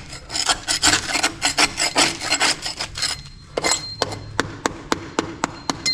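Scraping and chipping at soggy, crumbling wall compound and rust on a corroded metal window sill: a quick, irregular run of scrapes and small clicks that thins out about halfway.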